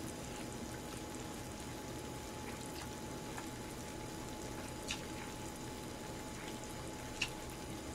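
Sukiyaki simmering in a pan on a portable gas stove, a steady low bubbling, with a couple of faint clicks as she eats.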